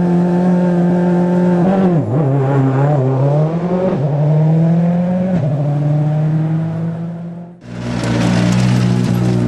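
Ford Focus RS WRC rally car's turbocharged four-cylinder engine held at a steady raised idle. About two seconds in, the revs dip sharply as the car pulls away, then climb again, with a short drop about five seconds in. Near the end the sound cuts abruptly to a second Focus WRC engine running steadily close by.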